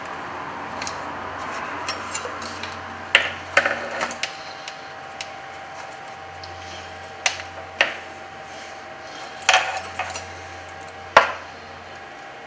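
Small metal tools and parts clinking and tapping on a workbench during capacitor replacement on a TV power board: several sharp taps in small groups over a low steady hum.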